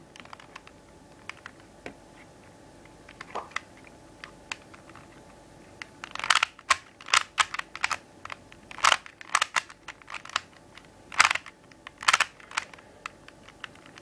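Plastic 3x3 Rubik's cube being turned by hand, its layers clicking as they snap round. A few faint clicks at first, then from about six seconds in a quick run of sharp, loud clacks.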